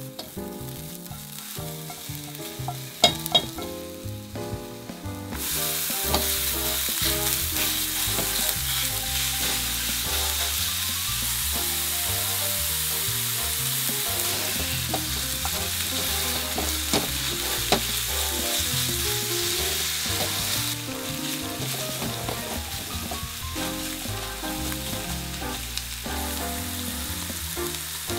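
Diced shiitake, scallion and ground pork frying and sizzling in oil in a nonstick pan while being stirred. Two sharp clicks come about three seconds in. The sizzle jumps much louder about five seconds in, as the raw pork hits the hot pan, and eases somewhat about twenty seconds in as the meat cooks through.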